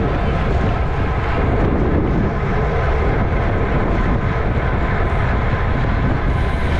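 Steady, loud wind rush over the microphone of a bicycle-mounted camera, from a road bike riding at race speed.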